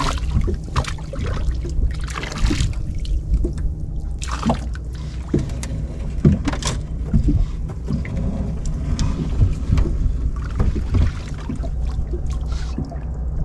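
Small boat's engine running low and steady, with irregular knocks, clatter and water splashing as shell octopus traps are hauled up and handled.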